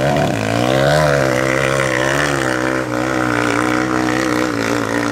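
Dirt bike engine revving hard under load as it climbs a steep dirt hill, its pitch wavering up and down with the throttle.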